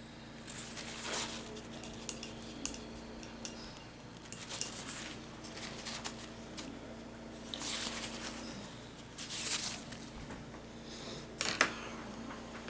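A paintbrush dabbing and scratching on a polymer clay dish, in short irregular strokes with a few light clicks and taps. A steady low hum runs underneath.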